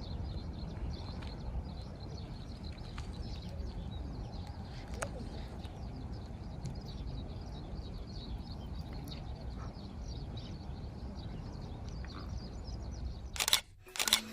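Outdoor ambience: a steady low rumble, like wind on the microphone, with faint scattered bird chirps over it.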